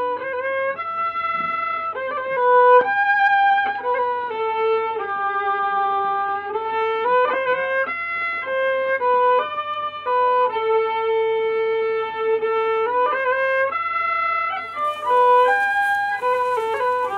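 Background music: a solo fiddle playing a slow melody of long held notes that slide from one to the next, over a faint steady low hum.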